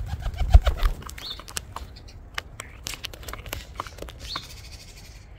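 A pigeon standing on the phone that is recording: heavy thumps right on the microphone in the first second, then a run of sharp clicks and taps as it shifts about on the phone, with a few short bird chirps.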